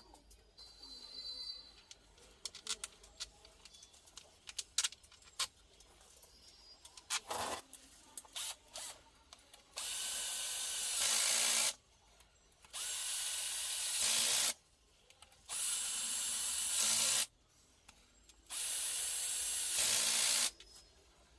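Clicks and knocks of handling, then an electric breaker (Bosch GSH 500 demolition hammer) switched on and run four times in short bursts of under two seconds each, a test run of the repaired tool.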